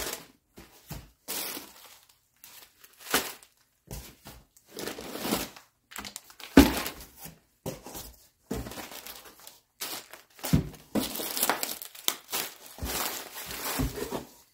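Plastic bags and packaging crinkling and rustling in irregular bursts as items are handled and lifted out of a box, with one sharper thump about halfway through.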